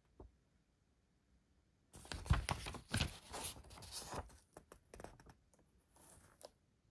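Plastic crinkling and rustling as it is handled, dense for about three seconds from about two seconds in, then thinning to a few scattered crackles.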